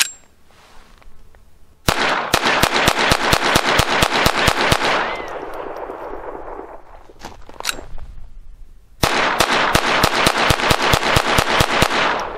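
Colt 1911-style .22 LR semi-automatic pistol firing Remington Thunderbolt rounds in fast strings of several shots a second. One string starts about two seconds in, a couple of single shots come in the middle, and a second fast string starts about nine seconds in. Every round goes off with no misfire or dud.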